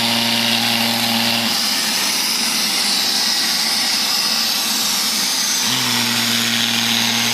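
Neato robot vacuum cleaner running, a steady motor whir with a hiss from its suction. A low hum in the sound stops about a second and a half in and returns near the end.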